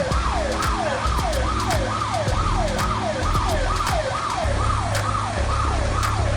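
A siren-like tone sweeping downward over and over, about two falling sweeps a second, over a steady low hum.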